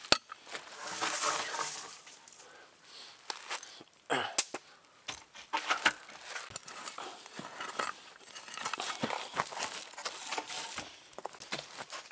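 Loose sandy soil being scraped and pushed back into a hole around a wooden post, with scattered knocks and crunches as it is packed down by hand and tool.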